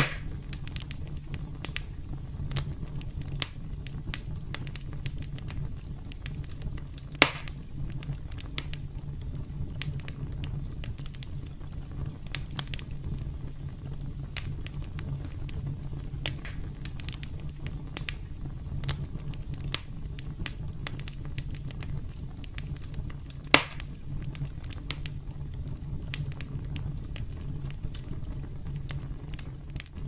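Wood campfire crackling: a steady low rumble of burning under frequent small snaps, with two sharp, louder pops, the first about a quarter of the way in and the second about three-quarters through.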